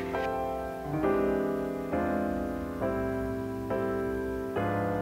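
Background music: soft piano chords, a new chord struck about once a second and fading away before the next.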